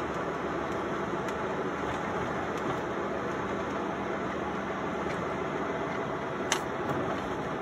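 Steady engine and road noise heard from inside the cab of a 1996 Ford F-150 on the move, with a single sharp click near the end.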